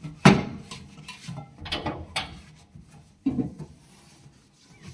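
A few sharp knocks and clatters from things being handled on a stainless steel kitchen counter. The loudest comes just after the start, with softer ones about two and three seconds in.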